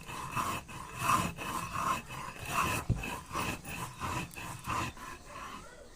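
Rhythmic rubbing or scraping strokes, about two a second, that fade toward the end.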